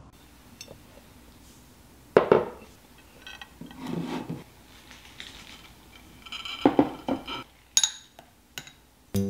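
Ceramic plates and bowls set down on a table with sharp clunks, the loudest about two seconds in, then a metal spoon clinking and scraping in small ceramic bowls of dip.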